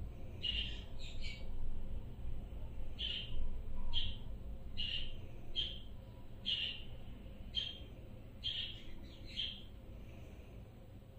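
Budgerigar giving a series of short chirps, about a dozen spaced irregularly, while its head is scratched.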